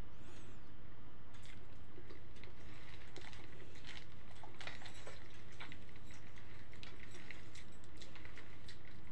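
A person eating by hand, chewing a boiled egg and tearing a whole cooked chicken with the fingers: wet squishing and many small clicks, over a steady low hum.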